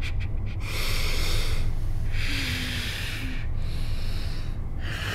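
A man breathing hard through his nose with his mouth taped shut: three long, hissy breaths, over a low steady hum.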